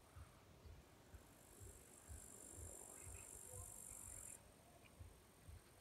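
Near silence: faint outdoor background, with a thin high-pitched hiss from about a second in that cuts off abruptly past the middle.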